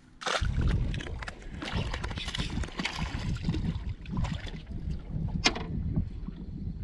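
Wind rumbling on the microphone over water and boat noise around a small open fishing boat, starting abruptly just after the start. A sharp click stands out about five and a half seconds in.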